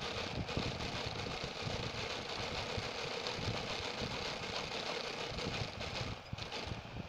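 Industrial sewing machine running steadily as it stitches a fabric strip, stopping briefly about six seconds in.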